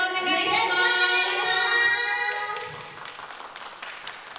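Several young women's voices in unison holding one long, steady note for about two seconds. It breaks off and scattered hand clapping follows.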